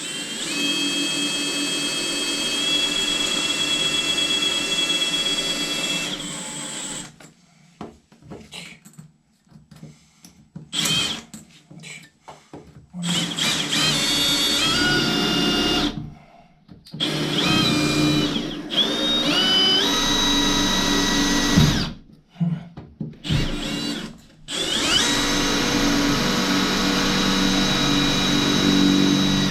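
Power drill drilling out an anchor hole, run in about five bursts with pauses between, its whine stepping up and down in pitch as the trigger speed changes.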